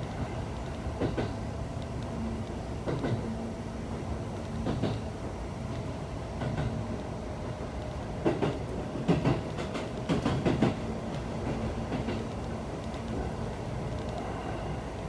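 Electric passenger train running, heard from inside the front car: a steady rumble and faint hum, with wheels clacking irregularly over rail joints and points, several clacks coming close together about eight to eleven seconds in as it crosses turnouts.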